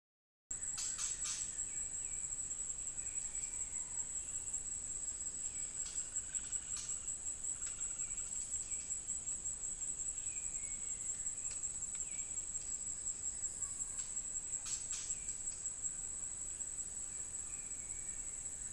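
Continuous high-pitched insect trill, steady throughout, with a few short clicks and faint brief chirps.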